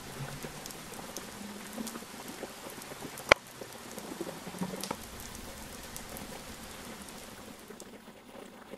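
Gritty crackling and rustling of potting soil as a small cactus's root ball is worked out of its pot and set into the planter's soil, with a sharp click about three seconds in.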